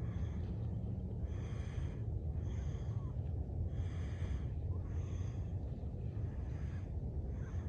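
A person breathing heavily, a breath about every second with a short pause near the end, over a steady low rumble.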